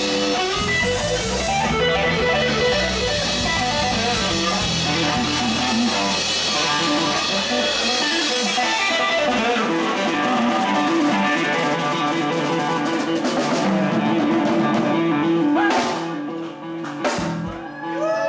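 Live band playing electric guitar over a drum kit, with a bluesy rock groove. The deepest bass drops out about halfway through, and near the end the music breaks for a couple of sharp hits.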